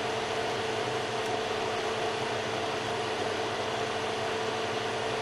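Zelmer food dehydrator's fan running steadily, a constant rush of air with a steady hum, blowing warm air over the heating element, which heats again with a jumper bridged across its blown thermal fuse.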